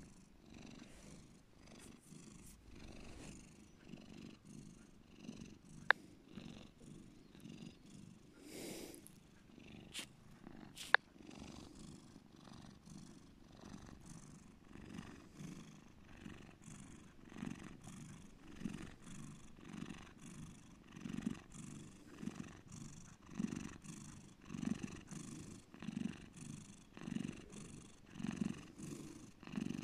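Domestic cat purring deeply, the purr swelling and fading with each breath a little more than once a second and growing louder in the second half. Two sharp clicks a few seconds apart early in the purring.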